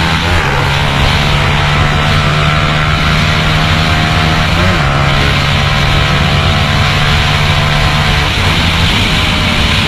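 150 cc motorcycle engine running hard at high revs under way, with wind rushing over the onboard microphone. The drone is steady, its pitch shifting briefly about half a second in, again near five seconds and around eight seconds.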